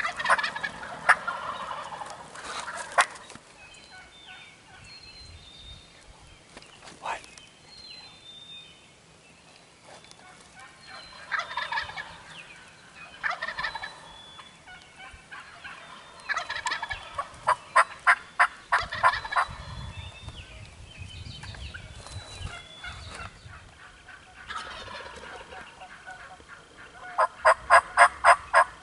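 Turkeys calling: several bursts of quick, evenly spaced notes, the loudest a run of about nine near the end. A single sharp click comes about seven seconds in.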